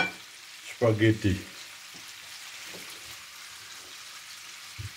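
Shrimp frying in butter and garlic in a frying pan, a steady sizzle. A sharp clack at the very start as the spatula is set down on a plate, and a soft knock near the end.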